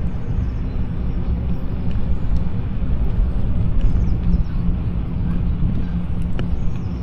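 Steady low rumble of wind buffeting the microphone and bicycle tyres rolling on asphalt while riding along at speed.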